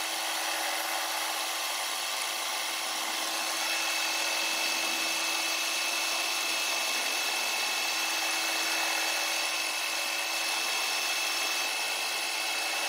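Metal lathe running while a number 20 twist drill in the tailstock chuck bores a tap-size hole into turning stainless steel bar stock. It makes a steady machining hiss with a low hum, and a thin high tone joins about three and a half seconds in.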